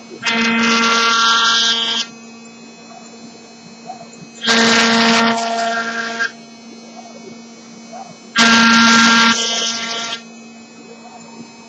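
Router spindle on an MPCNC (Mostly Printed CNC) machine running with a steady hum. Three times, about four seconds apart, it grows loud for about two seconds as the bit plunges into and cuts the workpiece.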